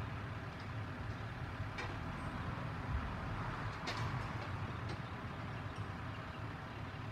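Heavy truck engine idling with a steady low hum, while a car drives past about halfway through. A few short metallic clanks sound over it.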